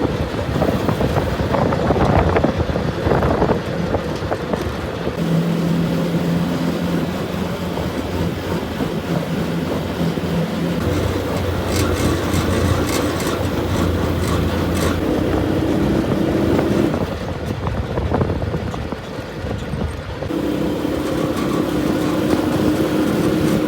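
Small vehicle's engine running as it drives along carrying a load of bricks, its note holding steady for a few seconds at a time, then stepping higher, dropping briefly, and rising again.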